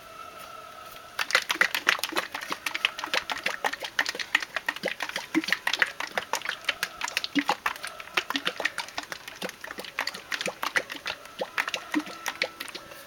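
Plastic bottle of paint being shaken hard, the thick paint sloshing and knocking inside in quick, even strokes several times a second. It starts about a second in and stops near the end.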